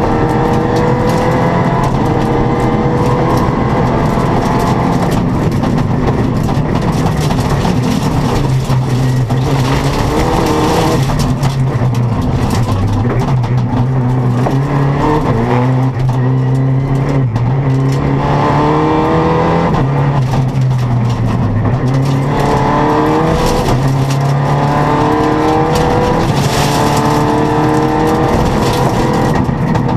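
Rally car engine heard from inside the cockpit under hard acceleration, its pitch repeatedly rising through each gear and dropping back at the shifts. In the middle it runs lower and steadier through a slow bend, over constant road and wind noise.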